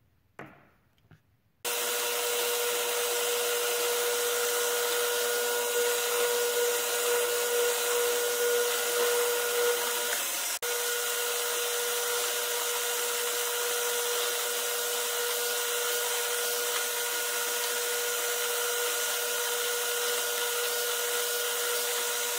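Drill press motor running steadily with a strong even hum while the bit drills into a small wooden block. It starts suddenly about two seconds in and briefly drops out about ten seconds in.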